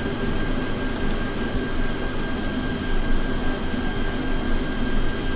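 Steady background room noise: a hum and hiss with a faint, steady high whine running through it.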